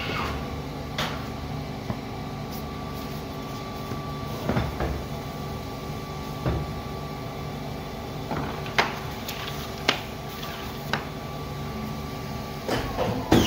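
Seypa 92 PMC paper guillotine cutter running with a steady hum, broken by irregular sharp knocks and clunks as stacks of coated paper are shifted and cut. The knocks come thicker near the end.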